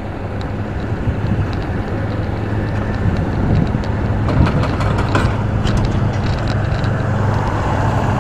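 Motorcycle engine running steadily while riding in slow traffic, heard from the bike's own camera, over a constant rush of road and wind noise.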